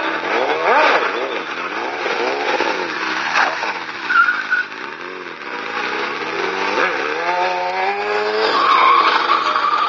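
Sport-bike engine revving up and down over and over during stunt riding, the pitch rising and falling about once a second. A high tire squeal comes briefly near the middle and again near the end.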